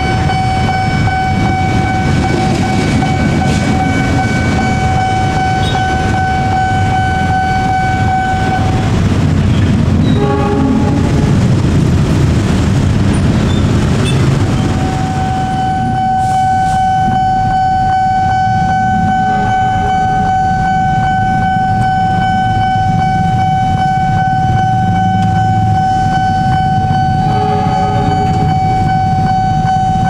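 Level-crossing warning siren sounding a loud, steady high tone. It breaks off about a third of the way in for several seconds of louder train rumble with a short horn blast, then resumes. Short horn blasts sound over it twice more near the end.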